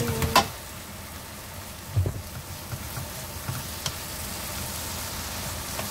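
Shishito peppers sizzling in a soy-sauce glaze in a frying pan, stirred with a wooden spatula. There is a sharp clink at the start as the glass lid comes off, then a few knocks of the spatula against the pan.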